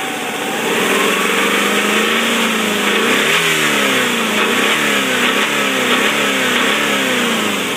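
1997 Subaru Legacy Outback's flat-four engine being revved: the revs climb slowly, then it is blipped up and down about twice a second, bringing out a knocking noise that the owner takes for a worn connecting rod bearing.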